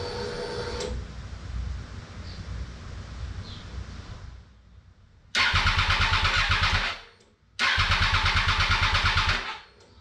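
Triumph race bike's electric fuel pump whining as it primes, stopping about a second in; then the starter motor cranks the engine in two bursts of about a second and a half and two seconds, with even, rapid pulses. These are first start attempts after a fuel pump rebuild.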